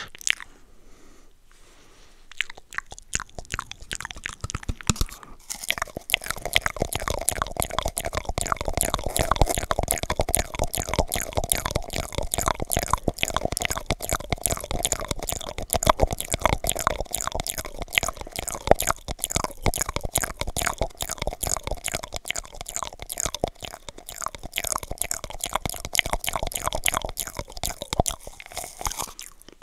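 Wet mouth sounds made right into a microphone: tongue clicks and lip smacks, first through cupped hands and then through a cardboard toilet paper roll held to the mouth. Sparse at first, they become a fast, dense stream of clicks about five seconds in.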